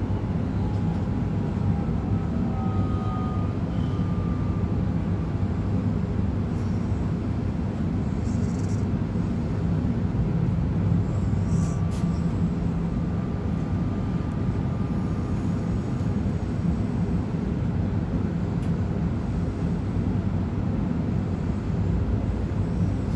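Interior noise of a Z 50000 electric multiple unit under way: a steady low rumble from the wheels and track, with faint whining tones that drift slowly in pitch.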